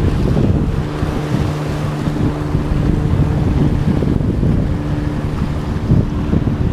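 A banner-towing light plane's propeller engine running steadily overhead, under wind buffeting the microphone and surf washing against the rocks.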